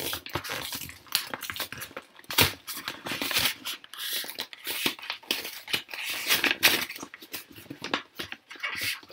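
A cardboard mailer being handled and torn open by hand: irregular rustling, scraping and tearing of paperboard, loudest about two and a half seconds in.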